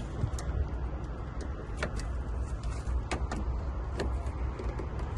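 Short metallic clicks and light scrapes, about half a dozen at irregular spacing, as a flat screwdriver works a Mazda door lock cylinder out of the door. A steady low rumble runs underneath.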